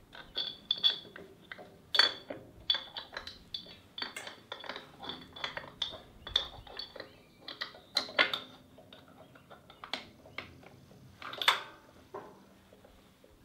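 Irregular metallic clicks and clinks, some ringing briefly, as a steel drive pulley and its fittings are handled and worked onto the engine's crankshaft. The loudest clanks come about 2, 8 and 11 seconds in.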